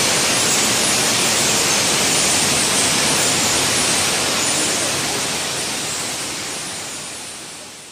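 Steady rush of flowing water, fading out near the end.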